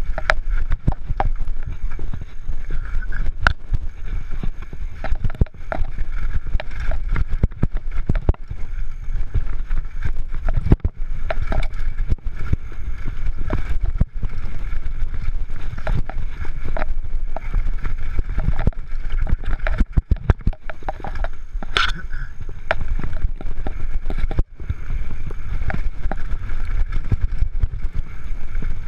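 Canyon Torque FRX downhill mountain bike descending a rough dirt trail at speed: continuous rumble of tyres and wind on the microphone, broken by frequent sharp rattles and knocks as the bike hits rocks and bumps.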